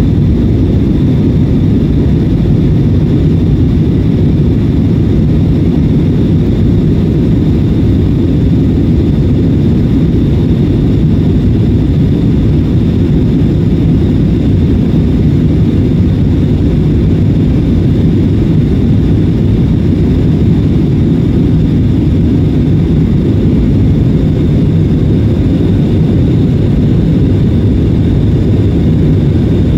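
Jet engine and airflow noise heard inside the cabin of an Airbus A320-family airliner in its climb after takeoff: a loud, even low rumble with a thin steady high whine over it.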